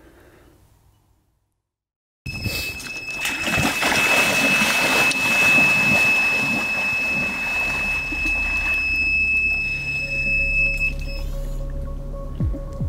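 Electronic carp bite alarm sounding one continuous high tone as a fish takes line, over heavy splashing of waders ploughing through shallow water. It starts suddenly about two seconds in, after a brief silence. Near the end, music with a low steady hum comes in.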